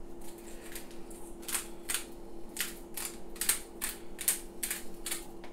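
A salt grinder twisted over raw chicken fillets, giving a run of crisp crunches, about three a second, starting about a second and a half in.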